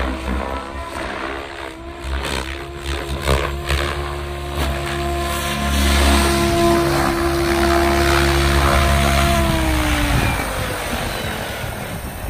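Electric SAB Goblin 700 RC helicopter with its main and tail rotors whirring in a steady tone that gets loudest as it comes in close. From about ten seconds in, the pitch falls as the motor and rotors wind down after landing.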